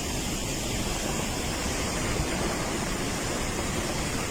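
Steady rushing roar of fast-moving water, heard as an even wash of noise with no breaks.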